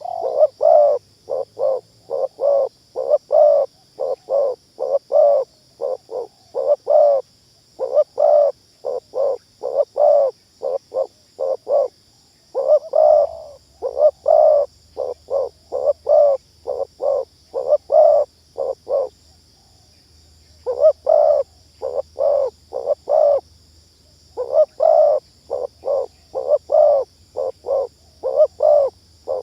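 Spotted dove coos, a fast-tempo lure call used to draw wild doves down to a snare. Short notes repeat rapidly, about two to three a second, in runs with brief pauses. A faint low hum starts about halfway through.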